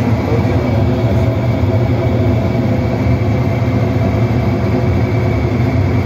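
Centrales Olimpia washing machine's motor running steadily with a low hum, powered through a newly fitted run capacitor that replaced a shorted one.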